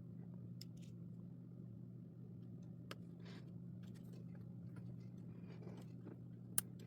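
Steady low hum with a few faint, sparse clicks and rustles, the sharpest click near the end: jumper wires being handled and pushed into breadboard holes.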